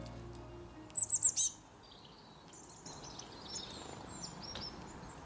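A small songbird chirping: a quick run of four high, falling chirps about a second in, then softer high calls and a short whistle, while background music fades out at the start.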